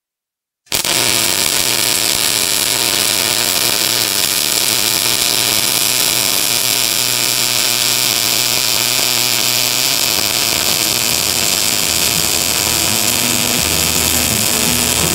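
MIG (gas metal arc) welding arc burning steadily as a bead is run on a metal plate: a loud, even hiss that starts suddenly less than a second in. Steady low tones of music come in under it near the end.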